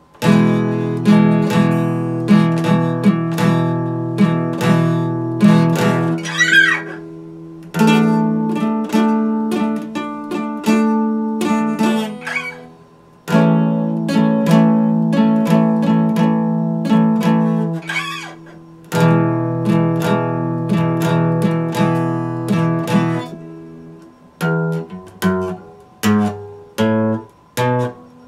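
Epiphone acoustic guitar played fingerstyle: ringing chords in several phrases with short gaps and brief squeaks between them. Near the end come single notes picked one at a time.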